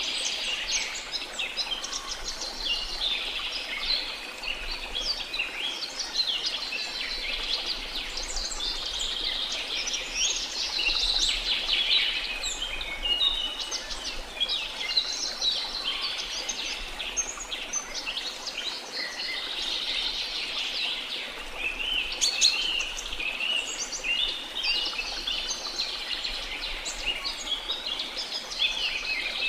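Many small birds chirping and twittering at once, a dense, continuous chorus of quick high calls.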